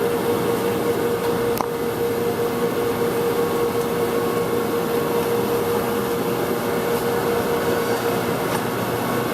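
Steady hum of workshop machinery with one constant mid-pitched tone, and a single sharp click about one and a half seconds in.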